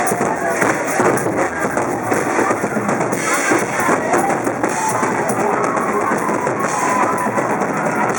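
Live band music with a drum kit playing steadily under a gliding melodic line.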